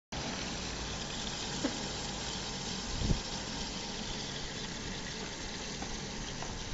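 Rice and grain washing machine running: a steady machine hum under an even hiss, with a short knock a little after three seconds in.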